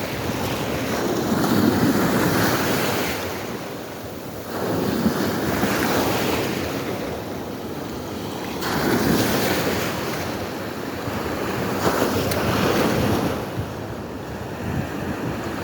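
Small sea waves from a slight swell washing onto the beach, rising and falling in slow surges about every three to four seconds.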